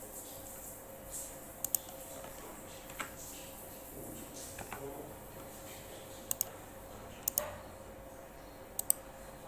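Computer clicking: sharp double clicks, four pairs spread a second or more apart, with a few fainter ticks between, over a steady faint hum.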